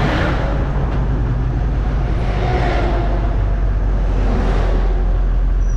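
Humvee's diesel V8 engine and drivetrain droning inside the cab as the truck slows in traffic, a steady, loud low rumble.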